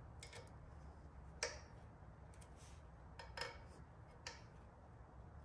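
A few faint, irregular metallic clicks and taps from a hand tool and small metal parts being handled, the loudest about a second and a half in, over a faint low hum.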